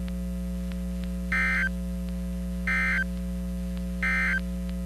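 Emergency Alert System end-of-message data bursts on a weather radio broadcast: three short, harsh two-tone digital bursts, each about a third of a second long and roughly a second and a half apart. A steady electrical hum runs underneath, signalling that the warning message has ended.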